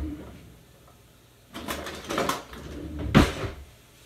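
Chopped vegetables (cabbage, bell peppers, onions, carrots) being tipped and scraped into a frying pan, a rustling, scraping clatter for about a second, followed a moment later by one sharp knock against the pan.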